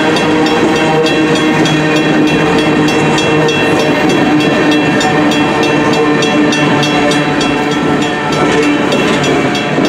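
Freight train of tank cars rolling steadily past at close range: loud, continuous running of steel wheels on the rails, with steady ringing tones over it.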